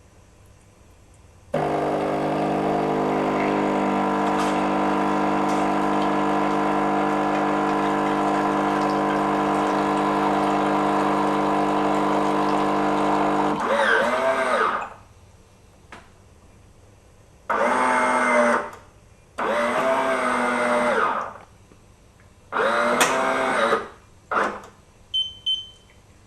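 Mezzoli ME-710 fully automatic coffee machine running its brewing cycle. First its built-in grinder runs steadily for about twelve seconds. Then the machine gives three shorter motor-and-pump bursts with a wavering pitch, a few clicks and a short high beep.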